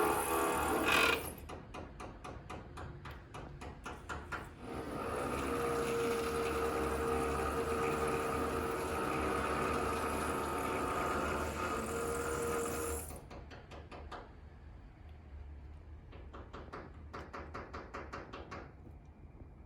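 Power tool from building renovation work, alternating between fast rhythmic rattling taps and a louder steady run with a droning tone. The steady run cuts out about a second in, comes back about five seconds in and stops again about 13 seconds in, each time giving way to the rattling, which fades out near the end.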